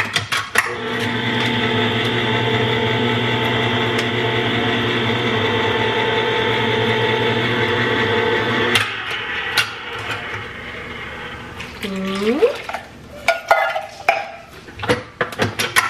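Electric can opener running steadily for about eight seconds as it cuts open a can of evaporated milk, then switching off. A short rising whine comes around twelve seconds in, followed by clicks and clatter of the cans being handled.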